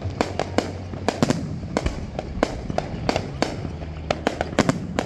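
Aerial fireworks going off in a quick, irregular string of sharp bangs and crackles, several a second.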